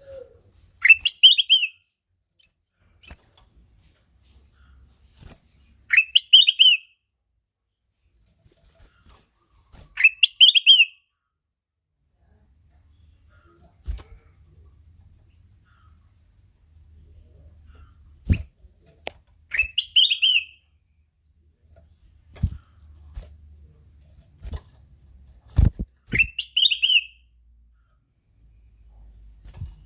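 Kutilang emas bulbul calling five times, each a short quick run of notes falling in pitch, with long gaps between. A steady high-pitched insect drone runs underneath, and a few sharp clicks are heard.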